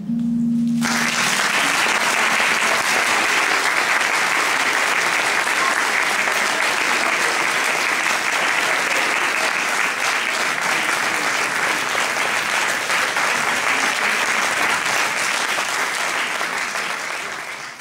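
A final held low note of the music ends about a second in, then a hall audience applauds, a dense, steady clapping that fades away near the end.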